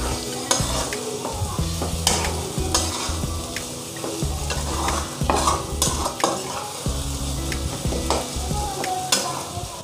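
A spatula stirring and scraping scrambled egg and masala around a nonstick kadai, with frying sizzle underneath and irregular scrapes and knocks against the pan.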